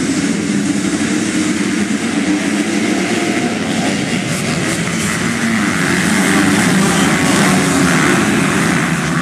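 A full field of MX2 motocross bikes at full throttle, launching off the start line and racing toward and past, a dense mass of engines that gets loudest around six to eight seconds in.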